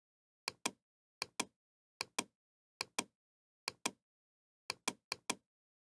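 Seven quick double-clicks of a computer mouse button, one pair a little under every second, with the last two pairs closer together.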